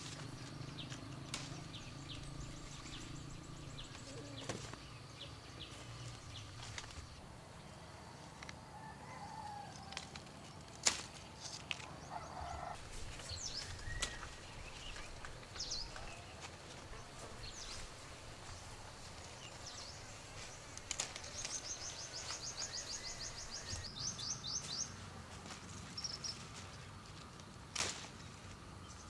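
Domestic fowl calling and moving about, with scattered sharp knocks and taps and short high bird chirps. A rapid high trill of repeated ticks runs for a few seconds in the latter half.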